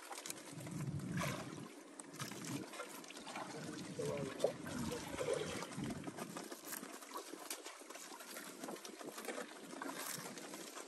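Water trickling softly.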